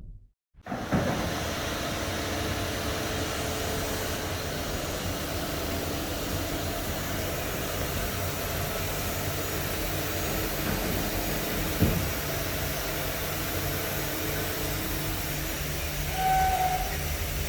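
Mazak Integrex 200-IV ST CNC mill-turn lathe running: a steady mechanical whir with hiss and a low hum, one sharp click about twelve seconds in and a short tone near the end.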